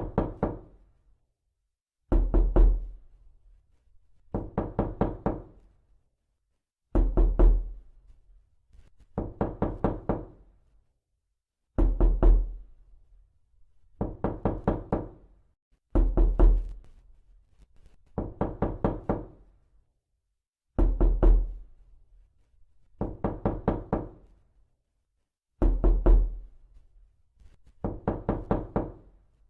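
Repeated knocking: quick runs of four to six knocks, each run followed by a pause of a second or so and coming around every two seconds, with a low thud under each knock.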